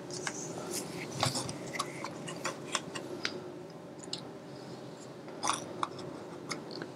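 Playing cards being handled on a playmat: scattered small clicks, taps and rustles at irregular intervals, over a steady low hum.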